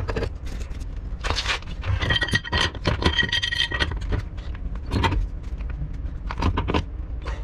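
Two pipe wrenches working a threaded galvanized steel pipe joint, one turning it tight and the other holding it back: repeated metal clicks, clinks and scrapes as the jaws bite and shift on the fittings. About two seconds in there is a brief high metallic squeal, over a steady low rumble.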